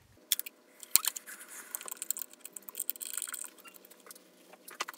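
Hands handling motorcycle wiring: scattered small clicks of wires and plastic connectors with rustling, a sharper click about a second in, and a crinkly rustle from about two to three and a half seconds in.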